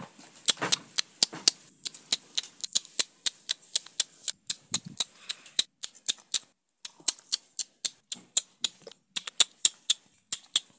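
A rapid run of sharp little clicks, about three or four a second, as plastic toy spoons are pushed to baby dolls' mouths in pretend feeding.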